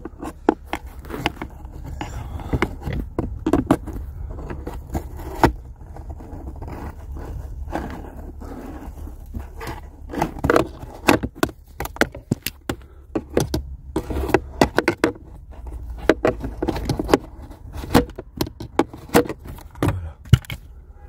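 Hands scraping and rubbing on plastic trim and housings behind a car's glovebox, with many irregular clicks and knocks as the parts are pushed and worked by hand.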